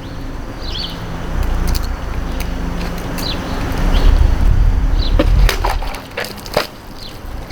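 Butterfly knife blade chopping through plastic water bottles: a few sharp knocks and cracks about five and a half to six and a half seconds in, over a low steady rumble.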